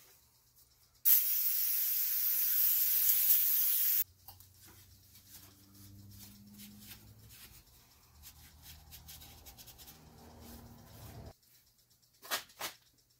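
Aerosol spray can sprayed in one continuous hissing burst of about three seconds, followed by quieter rustling and handling noise and two sharp clicks near the end.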